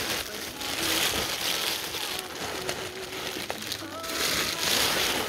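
Plastic air-pillow packing being crinkled and rustled as it is pulled out of a shipping box, loudest about a second in and again near the end.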